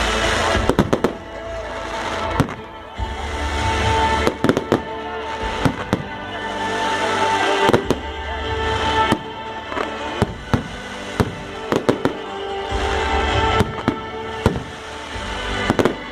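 Fireworks going off: irregular sharp bangs and crackles, some in quick clusters, over music with steady held notes.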